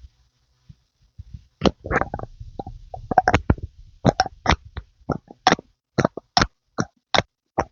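ASMR pumping sounds: a run of short, wet, squelchy pops, crowded together at first and then coming about one or two a second.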